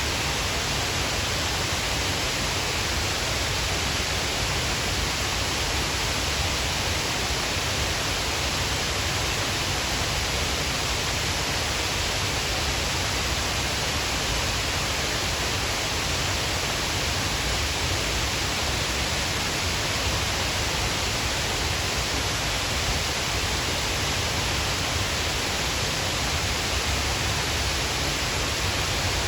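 Shiraito Falls' many thin streams of water pouring down a cliff face, a steady, unbroken rush of falling water.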